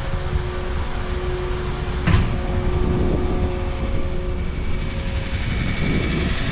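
Tractor engine running steadily, with a single sharp knock about two seconds in.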